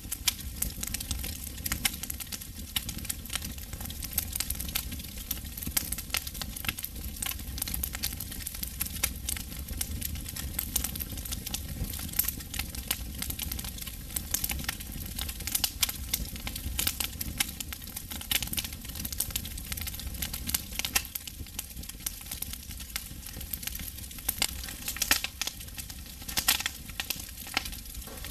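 Wood campfire crackling, with a dense run of small sharp pops and some louder snaps near the end.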